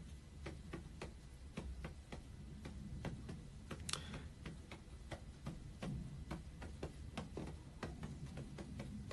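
A run of light clicks or ticks, roughly three a second, over a low steady hum; one sharper click about four seconds in.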